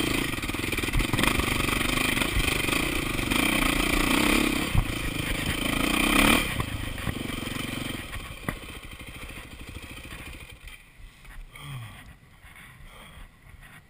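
KTM enduro motorcycle engine running hard on a dirt trail, its pitch wavering with the throttle and rising about six seconds in. The engine then drops off sharply and the sound dies away over the next few seconds, leaving only faint clicks and rustles.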